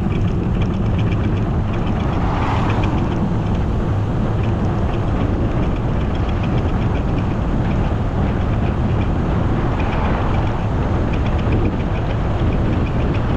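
Steady wind and road rumble of a bicycle being ridden, heard on a camera riding along with it, with a fast, faint ticking throughout and two brief swells, about two seconds in and again about ten seconds in.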